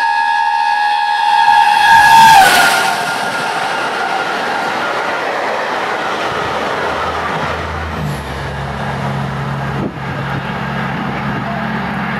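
Peppercorn A1 steam locomotive 60163 Tornado's whistle sounding one long, steady blast as it approaches at speed. The whistle is loudest and drops sharply in pitch as the engine passes, about two seconds in, and is followed by the rushing noise of the train's carriages going by.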